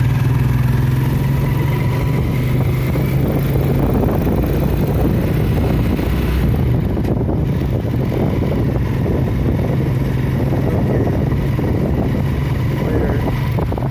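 Motorcycle tricycle's engine running steadily while riding along a street, a continuous low engine drone that is strongest in the first few seconds.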